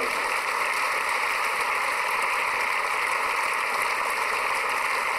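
Crowd applauding steadily.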